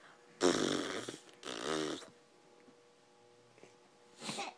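A baby coughing: a loud rough cough about half a second in, a second one right after it, and a fainter one near the end.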